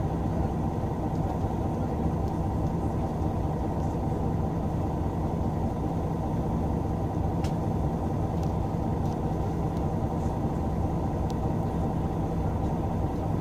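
Steady low rumble of a city bus's engine heard from inside the passenger cabin, even throughout with no revving.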